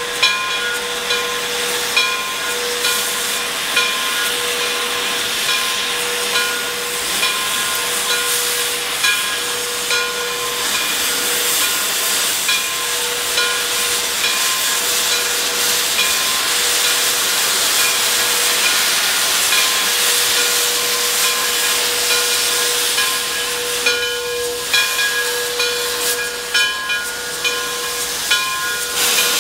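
Frisco 2-10-0 steam locomotive No. 1630 hissing steam from its open cylinder cocks, with short louder puffs about once a second and a steady pitched whine underneath.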